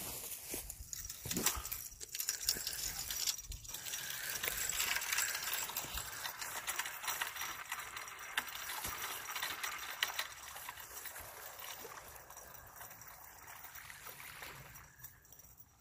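A large catfish being landed on a rod: water splashing and gurgling, mixed with many small clicks and rattles from the fishing tackle. The rushing is busiest in the middle and dies down near the end.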